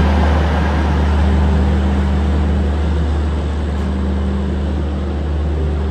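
Passenger train pulling slowly out of a station, heard from on board: a steady low drone and hum of the moving train.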